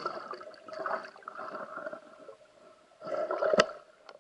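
Underwater churning and bubbling as a speared pike thrashes on the speargun shaft, stirring up the bottom. A sharp knock sounds about three and a half seconds in.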